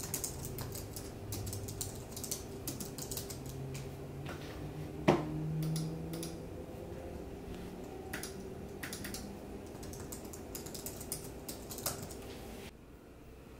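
Typing on a computer keyboard: irregular key clicks, with one louder knock about five seconds in. The sound drops away near the end.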